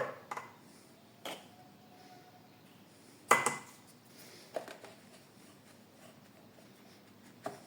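A few separate clinks and knocks of hard kitchen items being handled, the loudest about three seconds in with a brief ring.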